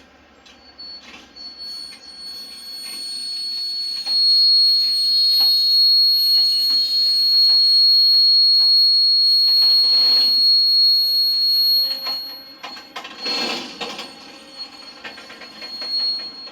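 Container freight train's wheels screeching against the rails as it starts to roll: one long, loud, high-pitched squeal that builds over the first few seconds, is loudest in the middle and eases off about three-quarters of the way through. Sharp knocks of the wheels passing rail joints are heard under it.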